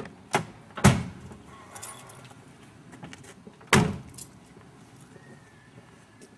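Mercedes-Benz 190 saloon's driver's door: clicks and a loud knock near the start as the door is worked open, then the door is slammed shut a little under four seconds in.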